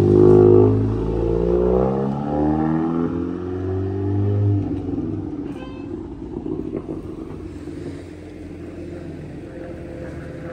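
Volkswagen Golf 7 R's turbocharged four-cylinder engine pulling away, its note rising as it accelerates and then fading out after about four and a half seconds, leaving quiet street noise.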